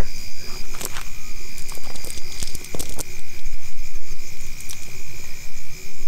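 Night insects chirring in a steady high drone, with a few scattered clicks and knocks from the cast net and the sticks caught in it being handled.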